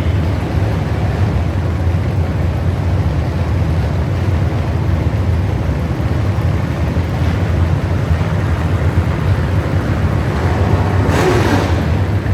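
Truck engine running steadily with a low rumble, with a short rush of noise about eleven seconds in.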